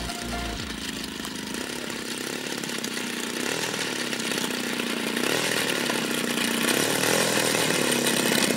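The DLE 60cc twin-cylinder two-stroke gasoline engine of a large model Extra 330 runs at low throttle while the plane taxis, getting steadily louder as it comes closer. Its pitch rises and falls briefly a few times with small throttle changes.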